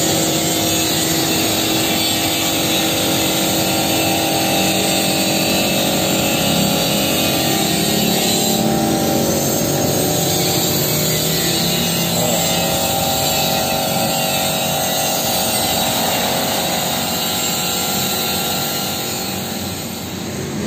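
Compressed-air paint spray gun hissing steadily as black paint is sprayed, with a steady machine hum underneath.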